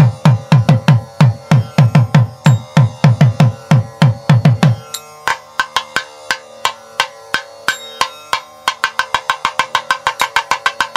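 Music with fast, even drumming: deep drum strokes that drop in pitch, about four a second. About five seconds in the deep strokes stop and lighter, sharper strokes carry on, joined by a held note near the end.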